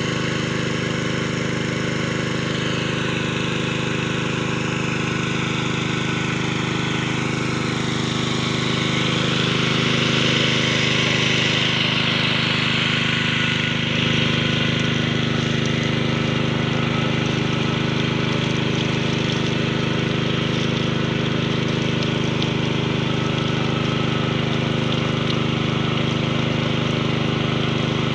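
Engine-driven water pump running steadily, feeding water through a hose into a hand-turned well-boring pipe, with water splashing at the bore.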